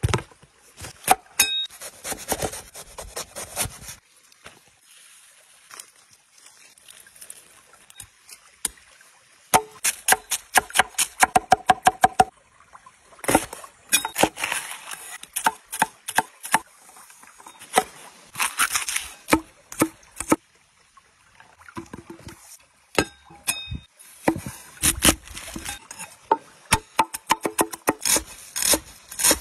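A cleaver chopping vegetables on a thick wooden board: aubergine, red chillies and coriander. It comes as runs of sharp knocks, about six a second at the fastest, with crisp cutting sounds between the runs.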